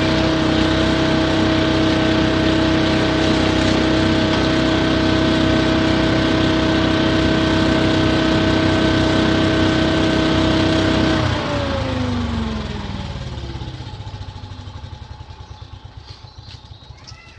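Petrol leaf vacuum's engine running steadily at a constant speed, then shut off about eleven seconds in, its pitch falling as it winds down to a stop.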